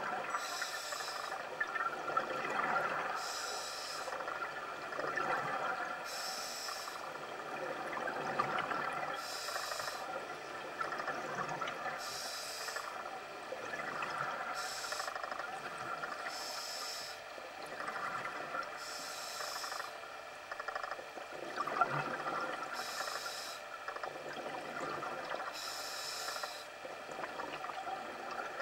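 Scuba diver breathing through a regulator underwater. A hiss of inhaled air through the demand valve comes about every three seconds, and between the breaths exhaled air bubbles out of the regulator.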